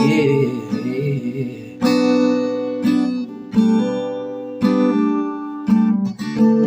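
Acoustic guitar strumming slow chords, about one strum a second, each chord ringing out and fading before the next.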